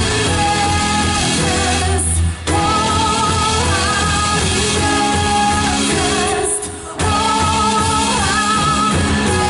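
Live worship band playing a song with a lead singer over guitar and drums, dipping briefly between phrases about two and seven seconds in.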